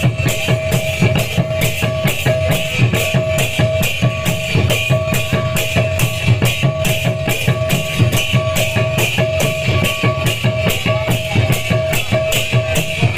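Kirtan accompaniment played without singing: a two-headed barrel drum and hand cymbals keep up a fast, steady beat, with the cymbals clashing on every stroke over a sustained held note.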